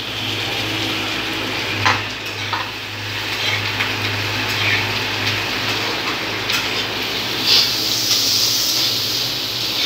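Mushrooms and onion sizzling in butter in a wok while a steel spatula stirs them, with a few sharp clinks and scrapes of the spatula against the pan. A steady low hum runs underneath.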